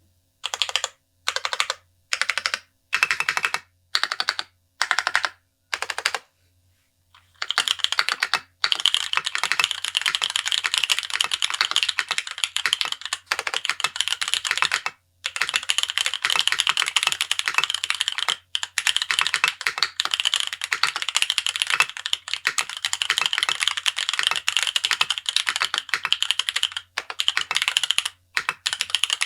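Mechanical keyboard with stock (unlubricated, as shipped) JWICK Black tactile switches being typed on. First come short separate bursts of key clacks about once a second, then, after a brief pause, steady fast typing that runs on with a few short breaks.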